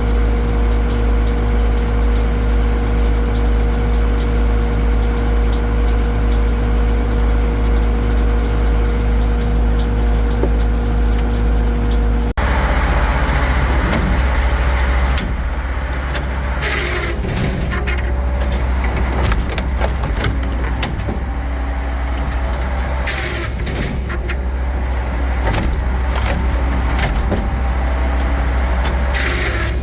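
Firewood processor's engine running steadily with a constant hum. It changes abruptly partway through to a rougher running sound broken by several short, sharp noises as the machine works.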